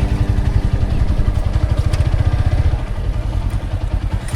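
An engine running with a fast, even pulse.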